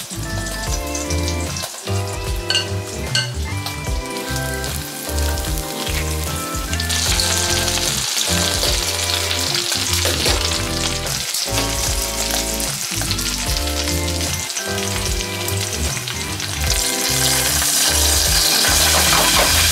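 Hot oil sizzling as a breaded cutlet shallow-fries in a steel pan, the sizzle growing louder about seven seconds in and again near the end. Background music with a steady beat plays throughout.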